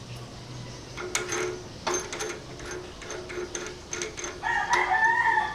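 A rooster crowing: one long call starting about four and a half seconds in and running to the end, the loudest sound here. Before it there are scattered faint clicks and scrapes.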